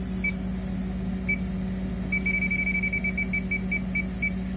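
Electronic refrigerant leak detector beeping over a steady low hum. It gives single beeps about a second apart, then from about two seconds in a fast run of beeps that slows toward the end. The fast beeping is the detector picking up R134a refrigerant.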